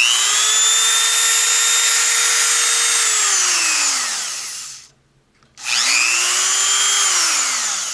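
Dremel Moto-Tool rotary tool running free in the hand, switched on twice: each time a high whine rises fast to full speed, holds steady for a couple of seconds, then falls away as the motor is switched off and spins down. It is a test run after replacing the motor-to-spindle coupler, and the tool runs again.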